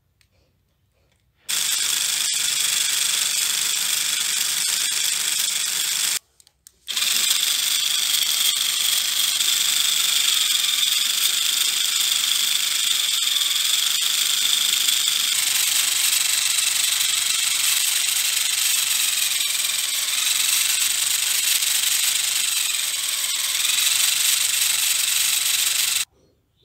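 Homemade PVC engine-and-gearbox model running under electric power: a steady high whir of its small motor and plastic gears as the wheel spins. It starts abruptly, drops out briefly about six seconds in, changes tone a little past halfway, and cuts off near the end.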